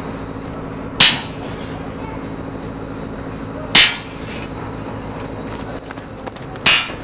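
Sledgehammer striking steel rods three times, a few seconds apart, each blow a sharp metallic clang with a short ring, over a steady low hum.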